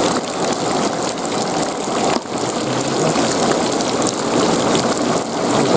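Heavy rain falling on wet ground and splashing into puddles, with rainwater running over the surface: a steady, dense hiss that dips briefly about two seconds in.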